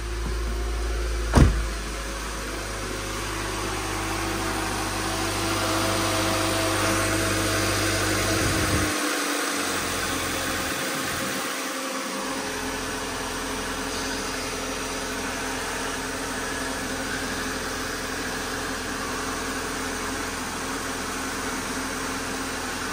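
Car engine running at idle, steady throughout, with one sharp knock about a second and a half in.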